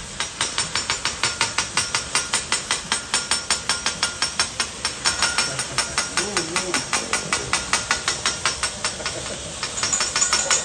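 Steel teppanyaki spatulas clacking rhythmically and fast, several ringing metal strikes a second, over the steady sizzle and hiss of the hot griddle.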